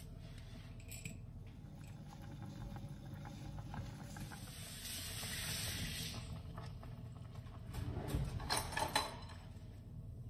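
Meatball soup boiling in a ceramic pot, a steady bubbling hiss that swells in the middle, with a cluster of light clicks and knocks about eight to nine seconds in.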